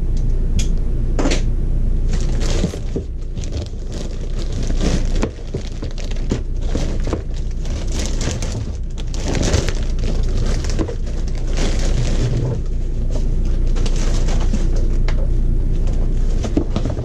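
Thin plastic bag wrapping crinkling and rustling continuously as it is torn open and a rigid plastic RV roof vent cover is slid out of it, with crackles and light knocks of the plastic cover, over a steady low hum.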